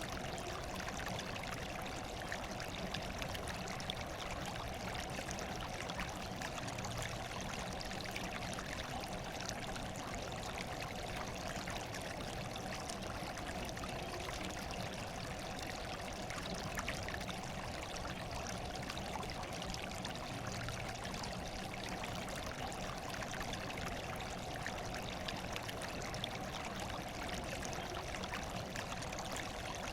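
Running water flowing steadily, an even rush of noise with no breaks or changes.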